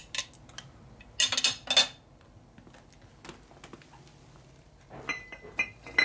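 Metal clinks and clatter as a chrome steel motorcycle bracket is handled and laid across the steel blocks of a hydraulic shop press: a burst of clatter about a second in, then a few more clinks near the end, one of them ringing briefly.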